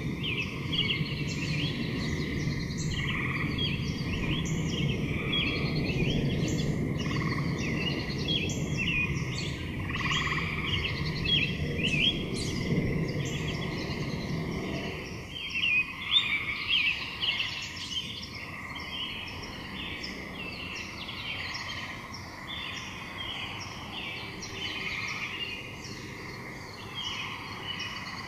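Small birds chirping over and over with many short calls, over a steady high hum. Low rumbling noise fades out about halfway through.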